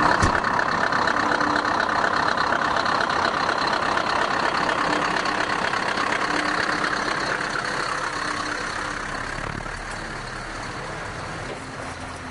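Articulated lorry's diesel engine running as the lorry pulls away and drives off, the sound slowly fading over the last few seconds.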